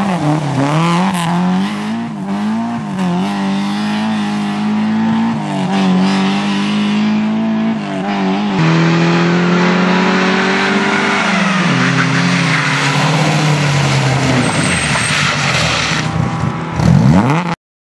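Lada rally car engines revving hard through bends, rising and falling in pitch with throttle and gear changes, with a stretch of steady high revs partway through. The sound cuts off suddenly near the end.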